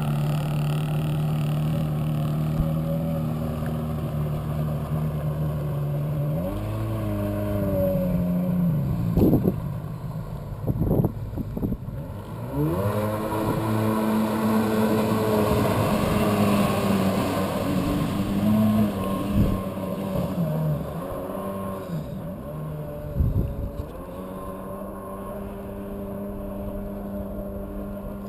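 Kawasaki 750SS two-stroke jet ski engine in a small aluminum jet boat, idling steadily, then revving up and down several times before holding steady revs. It grows quieter in the last few seconds as the boat moves away.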